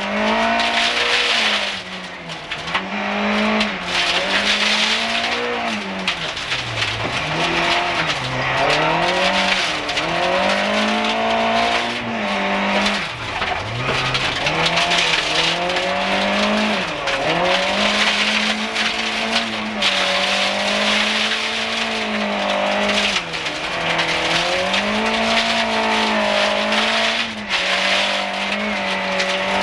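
Group H rally car's engine heard from inside the cabin, held at high revs along a gravel stage and dropping sharply and climbing back several times on lifts and gear changes, over a steady hiss of gravel under the tyres.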